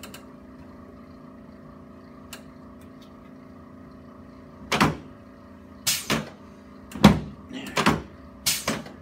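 Chiropractic drop table clacking: several sharp knocks, some in quick pairs, starting about halfway in and running to the end, over a steady hum.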